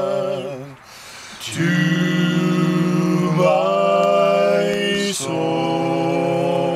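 Two men singing a gospel hymn a cappella in harmony, holding long drawn-out notes on the closing words of the chorus, with a short breath about a second in and a change of note near the end.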